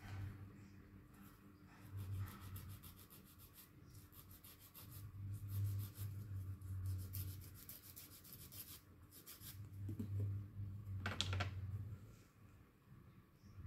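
Nail file rasping against toenails in runs of quick back-and-forth strokes, with pauses between them; faint. One sharper click about eleven seconds in.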